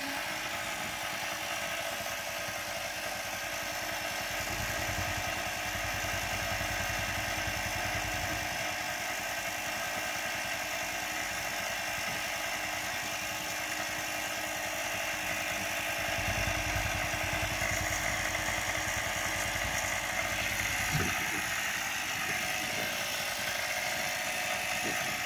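Portable electric air compressor running with a steady buzz as it pumps up a flat pickup-truck tire. Two stretches of low rumble come and go under it.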